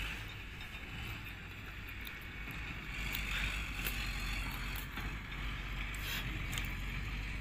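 A steady low rumble that grows louder about three seconds in, with faint scratchy sounds of a knife cutting and scraping a rahu fish on a plastic tarp.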